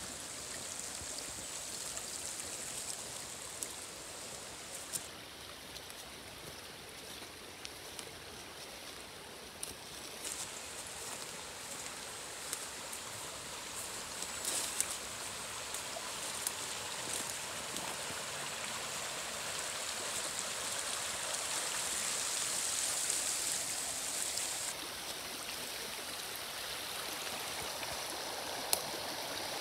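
Shallow woodland stream running over stones: a steady rush of water that grows a little louder in the second half, with a few faint ticks.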